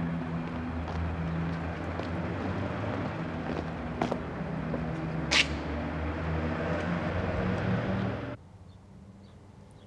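City street traffic: cars running past with a steady low engine hum and road noise, with a short sharp high-pitched sound about five seconds in. A little after eight seconds in, the street noise cuts off abruptly to quiet room tone.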